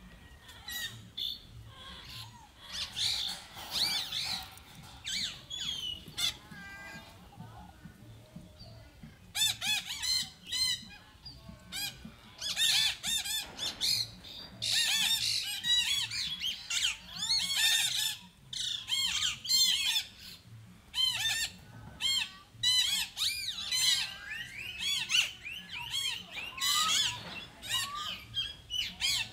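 Macaques giving high-pitched squealing calls, many short rising-and-falling cries in quick succession. They are sparse at first and crowd together, louder, from about nine seconds in.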